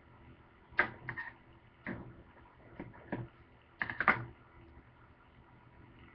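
Irregular sharp clicks and taps, about eight of them in small clusters over three and a half seconds, from objects being handled and set down on a plastic cutting board.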